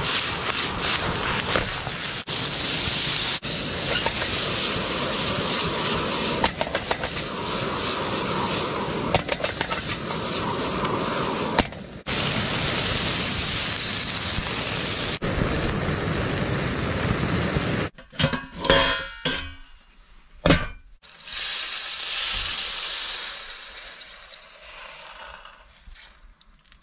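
Pork head meat stir-frying in a pan: steady loud sizzling with the clicks and scrapes of a spatula. About two-thirds of the way in it breaks off into a few sharp knocks, then a softer sizzle fades away near the end.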